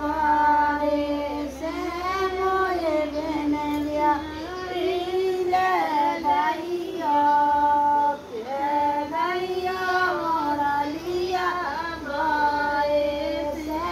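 A high voice singing unaccompanied, a melody of long held notes that rise and fall, with a short break about eight seconds in.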